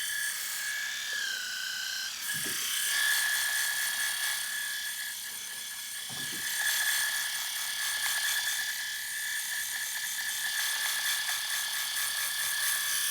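Small electric razor motor running steadily with a high-pitched whine, its pitch dipping briefly about a second in before settling back.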